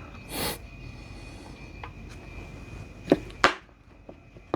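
Workbench handling sounds while 18650 cells are being hot-glued on a wooden jig: a brief breathy whoosh near the start, then two sharp clicks about three seconds in, under a faint steady high whine.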